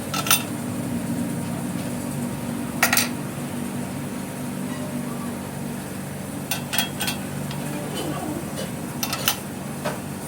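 Metal parts and tools clinking against each other now and then, over a steady low machine hum.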